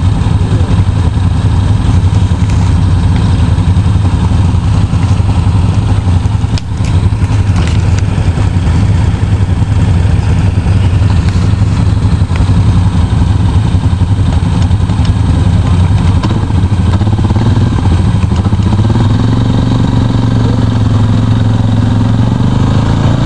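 Suzuki KingQuad ATV's single-cylinder four-stroke engine running under load in a muddy ditch. It holds a fairly even speed, with a couple of knocks about seven seconds in, then revs up and holds higher about three-quarters of the way through.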